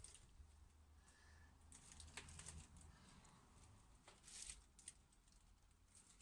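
Near silence: faint background hum with a few soft clicks and rustles, about two seconds in and again about four seconds in.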